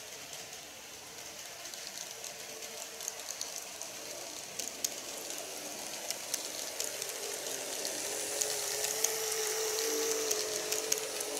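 Model electric train running close by: the whine of its motor and the clicking of its wheels over the track joints grow louder as it approaches, the whine strongest in the second half.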